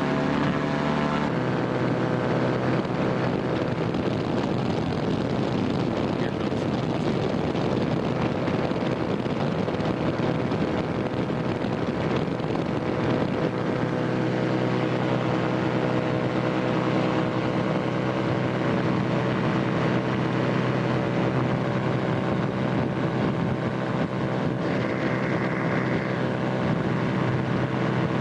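Ultralight aircraft engine and propeller running at power, heard from the open cockpit. The engine note climbs in the first second, then holds steady.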